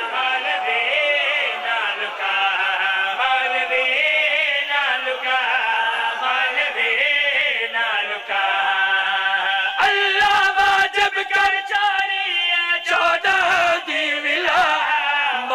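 A man chanting a qaseeda, a devotional praise poem, in long melismatic phrases whose held notes waver in pitch.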